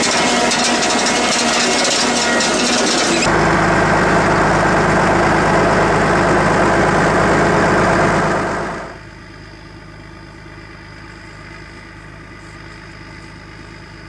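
A tractor-drawn potato harvester at work. Its elevator webs rattle over the engine noise, then a louder, low tractor engine drone takes over about three seconds in. From about nine seconds in, the engine is heard more quietly and steadily.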